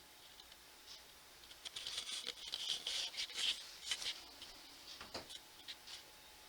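Dry rustling and crackling with sharp clicks for about two and a half seconds, starting a second and a half in, then a few scattered faint ticks.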